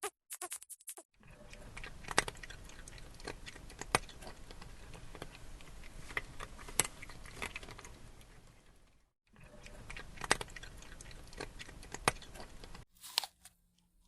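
An animal chewing food close to the microphone, a steady wet chewing broken by sharp crunches every second or two, stopping briefly about nine seconds in.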